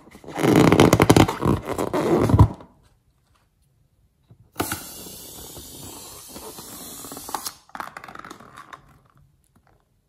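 Slime squelching and crackling as a balloon filled with slime is squeezed by hand, loud for the first couple of seconds. Then a quieter steady hissing squelch as the slime is pushed out through the balloon's neck onto slime in a bowl, with a few more crackles near the end.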